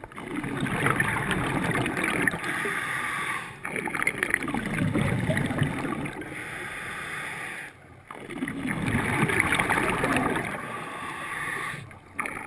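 Scuba diver's regulator breathing heard underwater: exhaled bubbles gurgle and rush in surges a few seconds apart, with quieter stretches between breaths.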